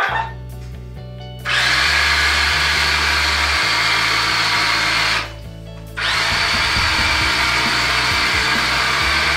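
Small electric motor and gearbox of a radio-controlled Hummer whirring with a steady high whine. It starts about a second and a half in, cuts out briefly around five seconds, then runs again, over background music with a stepping bass line.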